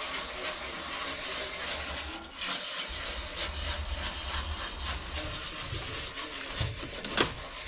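Wire whisk scraping round and round the bottom of a cast-iron skillet, stirring tomato gravy on the stove, with a sharp knock near the end.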